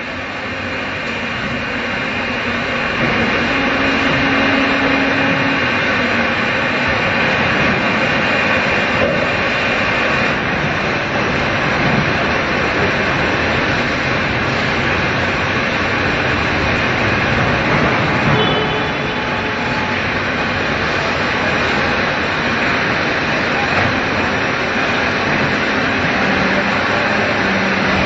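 Steady, loud machinery noise of an injection molding production line running, a continuous hiss and hum without a clear rhythm.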